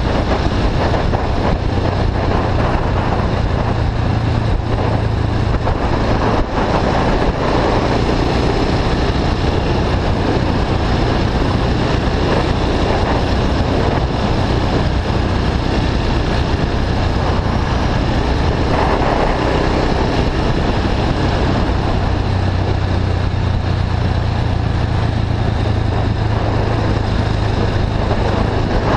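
KTM 690 Duke's single-cylinder engine, fitted with an Akrapovic slip-on and a decat bypass pipe, running at a steady cruise, with wind rushing over the microphone.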